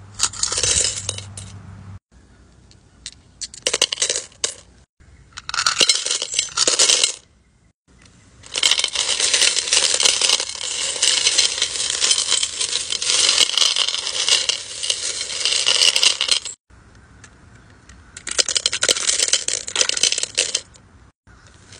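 Tumbled crystal stones, cube stones and small silver rings and charms poured by hand into a bowl full of stones, clattering and clinking. The pouring comes in several separate bursts; the longest pour runs about eight seconds.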